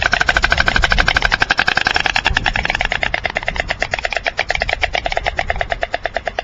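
White stork bill-clattering: a rapid, even rattle of bill clacks, about ten to twelve a second, held without a break and easing slightly in loudness in the second half.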